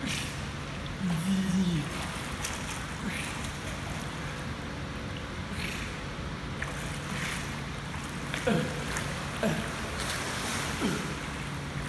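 Water splashing and sloshing in an indoor pool as a swimmer kicks and strokes on their back, over a steady low hum. A few brief falling voice sounds come near the end.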